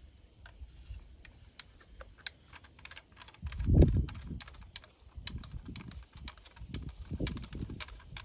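Irregular sharp clicks and knocks, several a second, from work on plastic drain pipe. Dull low thumps come in with them, the heaviest about three and a half seconds in.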